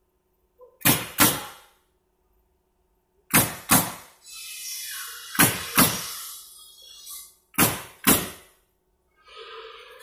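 Pneumatic coil nailer firing nails through pallet deck boards: eight sharp shots in four pairs, the two shots of each pair a fraction of a second apart and the pairs about two seconds apart. A hissing noise runs between the middle pairs and again near the end.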